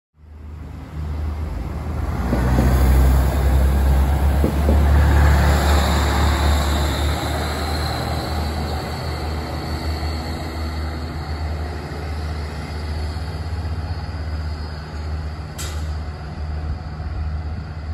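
Single-car diesel TER railcar running past below, its low engine drone and wheel noise loudest a few seconds in and slowly fading. One sharp click comes near the end.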